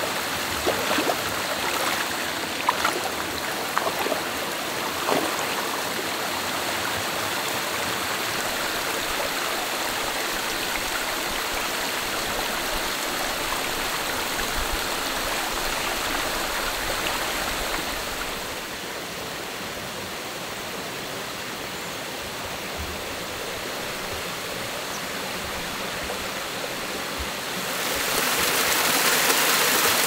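Mountain valley stream flowing: a steady rush of water, with a few short clicks in the first five seconds. It grows quieter about two-thirds through and louder again near the end.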